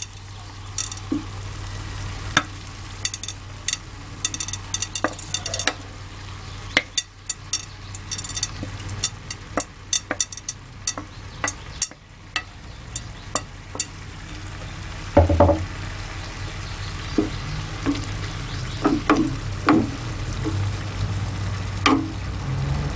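Marinated mussels being spooned and spread over a simmering tomato sauce in a tajine: repeated sharp clicks and light scrapes of a utensil against the dish, over a faint sizzle and a low steady hum.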